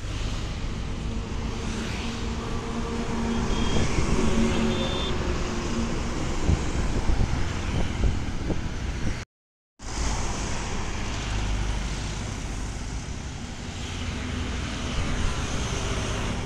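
Busy highway traffic passing close by: the engines of a bus, cars and motorcycles go by with tyre noise, with louder passes about four and seven seconds in. The sound drops out for half a second about nine seconds in, then the traffic noise carries on.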